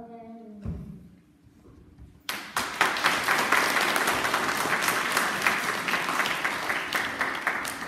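An audience of schoolchildren applauding, with many hands clapping at once; it starts suddenly a little over two seconds in and eases off near the end.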